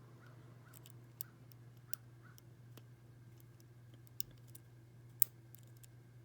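Lock pick working the pins of a six-pin First Watch padlock under light tension: a few sparse, light metallic clicks, the loudest about five seconds in, over a steady low hum.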